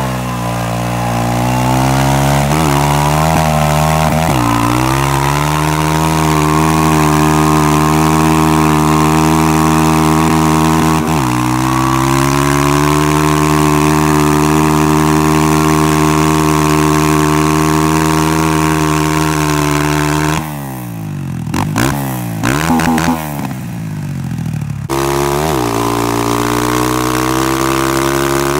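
Honda CRF230F's air-cooled single-cylinder four-stroke engine held at high revs through a burnout, the rear tyre spinning on pavement to burn off the old Dunlop. The revs dip briefly a few times, then about twenty seconds in they drop and rise in quick blips for several seconds before climbing back to a steady high pitch.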